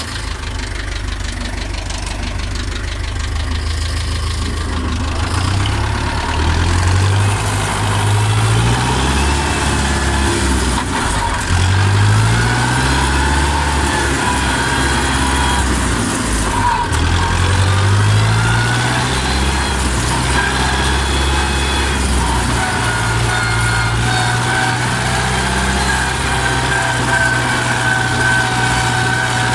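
Steyr 650 Plus tractor's four-cylinder four-stroke diesel engine running. Its revs climb and drop back about four times, then hold steady for the last several seconds, with a high thin whine coming in near the end.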